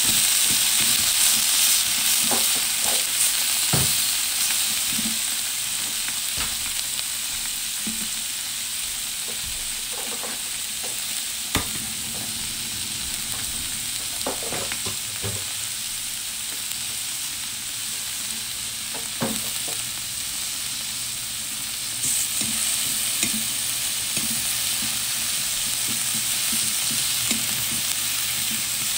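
Cubed beef steak sizzling on a hot, oiled thin steel griddle pan: a steady, dense frying sizzle, broken by a few light clicks and knocks as the pieces are moved. The sizzle grows a little louder about two-thirds of the way through.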